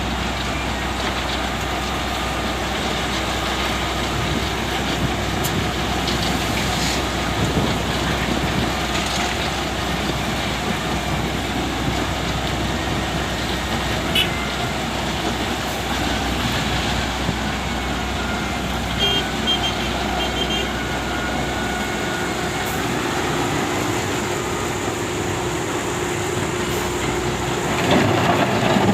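Heavy earthmoving machinery at work: the diesel engines of an SDLG loading machine and a dump truck run steadily. Near the end a louder rushing clatter begins, like a load of earth or rock being tipped into the truck's bed.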